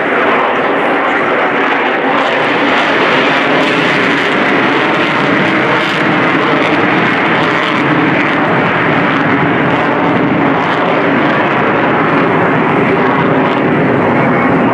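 F-35C Lightning II's single Pratt & Whitney F135 jet engine at full power with afterburner lit as the fighter pulls up into a steep climb: loud, steady jet noise that swells slightly toward the end.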